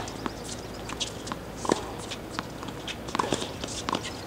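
Scattered short knocks and squeaks on outdoor hard tennis courts: balls being bounced and struck, and sneakers squeaking and stepping on the court surface.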